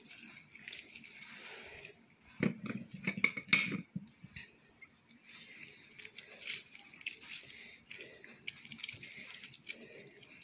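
A lemon squeezed by hand over a plastic bowl, its juice dripping onto the food, with irregular small ticks and crackles. A louder stretch of knocks and rustles comes about two and a half seconds in.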